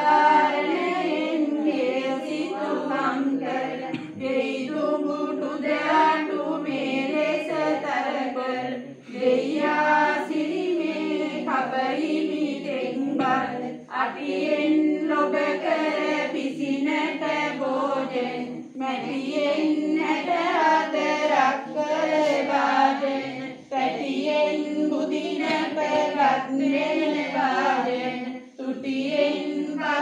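A group of women chanting devotional verses together in unison, a continuous sung recitation that pauses briefly for breath about every five seconds.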